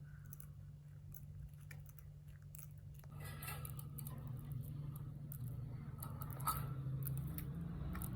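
Lovebirds eating hungrily: quick, irregular little clicks and crunches of beaks pecking and biting at food, getting busier and louder about three seconds in.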